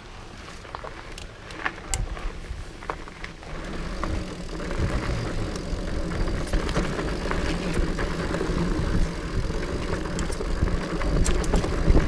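2017 Trek Farley EX 8 fat-tyre mountain bike riding down a dirt trail: a few light clicks and crunches at first, then about four seconds in a steady low rumble of the fat tyres on dirt with rattles from the bike as it picks up speed.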